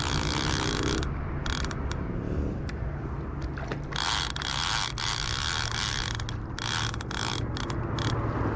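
Baitcasting reel being cranked in short spells, a clicking, gear-driven whir each time, while a hooked fish is reeled in.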